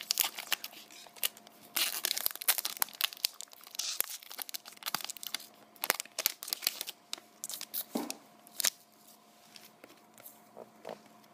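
A hockey card pack's wrapper being torn open and crinkled, with dense crackling for the first several seconds, then only a few scattered rustles and taps near the end.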